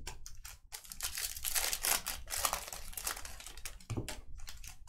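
Trading cards and foil card-pack wrappers being handled: irregular crinkling of the wrappers with quick clicks and rustles of cards sliding against each other.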